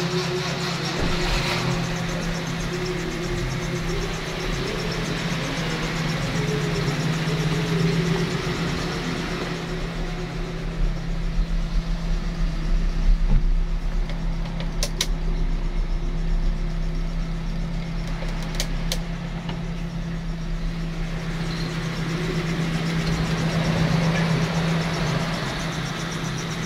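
Mitsubishi Colt T120SS pickup's 1.5-litre four-cylinder petrol engine idling steadily at a constant low hum.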